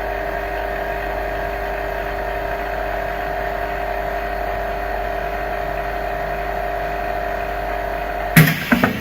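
Vacuum laminating machine running a steady hum with a whine during its lamination cycle. It stops abruptly about eight seconds in with a loud click and a few knocks.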